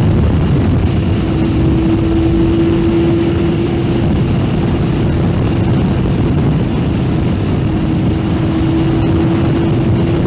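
Yamaha Fazer 600's inline-four engine running at a steady cruise, with road and wind noise. Its even tone drops back for a few seconds in the middle, then returns.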